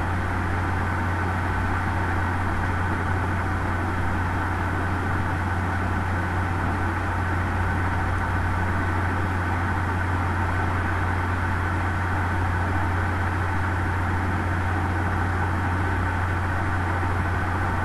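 Steady low hum with a hiss over it, unbroken and even throughout.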